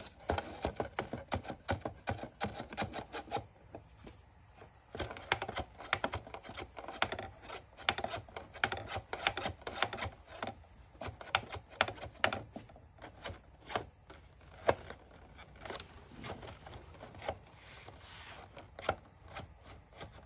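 Many quick, irregular clicks and scrapes from wooden chopsticks knocking and rubbing inside a homemade cardboard whack-a-mole toy as its balls are worked up and down through the holes.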